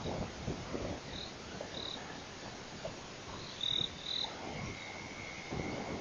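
Night chorus of frogs and insects: short high-pitched chirps every second or so, with a steady insect trill starting just past the middle, over a low rustling.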